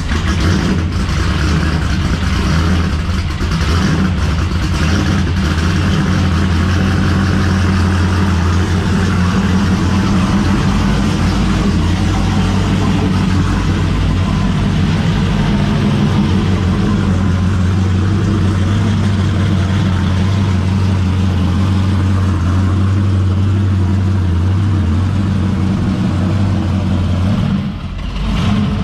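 Toyota GR86-bodied race car's engine running at a steady idle during a drivetrain warm-up. It is loud and even, with a deep, constant drone, and dips briefly near the end.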